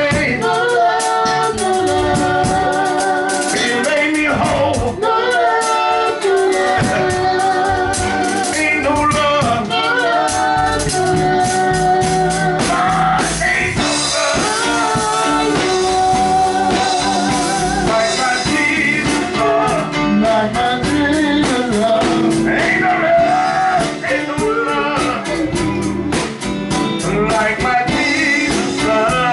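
Male gospel group singing in harmony, several voices with a lead line over them, backed by electric bass guitar and a drum kit.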